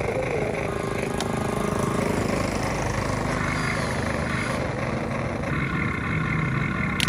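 A Huina remote-control model excavator running steadily, its pitch shifting a few times as the arm swings down and digs the bucket into the dirt.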